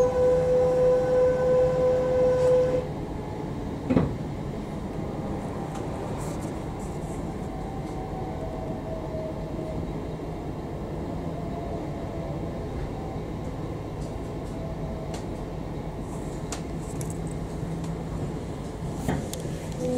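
Running noise of a passenger train heard from inside the carriage: a steady rumble, with a single sharp knock about four seconds in. A steady whine cuts off suddenly about three seconds in.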